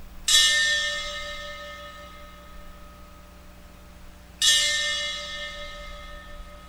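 A bell struck twice, about four seconds apart, each strike ringing out and slowly fading. It is the altar bell rung at the elevation of the chalice after the consecration at Mass.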